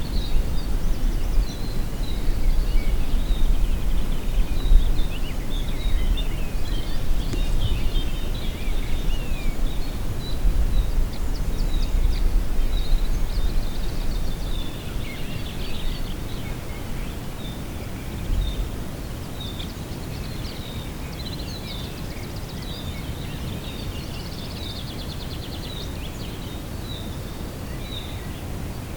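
Small songbirds chirping and twittering in many short, high calls, over a low rumble of wind on the microphone. The rumble is heavier in the first half and eases off about halfway through.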